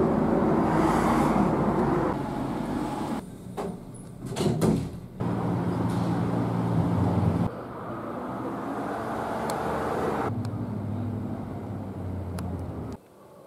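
City street traffic: vehicle engines running and road noise, with low steady engine tones. The sound changes abruptly every two to three seconds as short clips are cut together, with a few sharp knocks about four to five seconds in.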